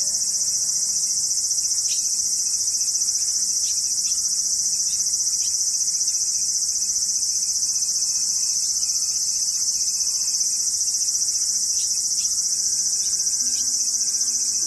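Steady, high-pitched chorus of insects, an unbroken shrill buzzing that does not change, with faint soft music tones underneath.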